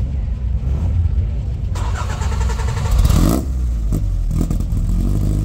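Triumph TR4A's four-cylinder engine idling with a steady low exhaust rumble, revved briefly about three seconds in, the pitch rising and falling back.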